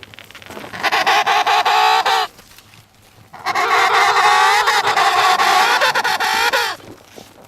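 An animal calling loudly twice: a call of about a second and a half, then after a short pause a longer one of about three seconds, both with a rough, rattling tone.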